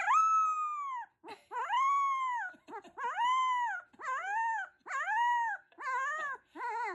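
A dog howling in a run of about seven drawn-out calls, each rising and then falling in pitch, growing shorter and quicker toward the end.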